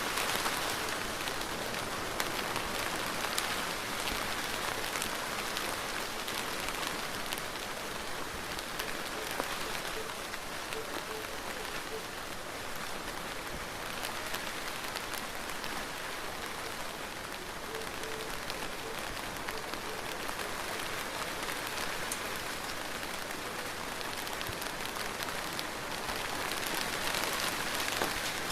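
Steady rain falling on a surface, an even hiss with scattered individual drop ticks.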